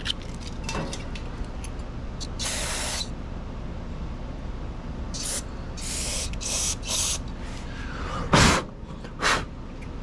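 Aerosol carb and choke cleaner sprayed through its straw in about seven short hissing bursts, the one near the end the loudest. The spray is flushing ethanol buildup out of a snowblower carburetor's main jet.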